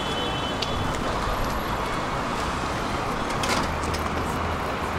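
Steady city-street traffic noise: a continuous wash of passing cars, with a few sharp clicks about three and a half seconds in.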